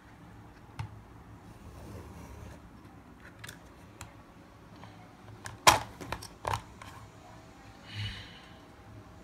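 Hard plastic toys knocking and clicking as a toy excavator is handled in the plastic bed of a toy dump truck: a few light clicks, then a cluster of sharp knocks a little past the middle and a brief scrape near the end.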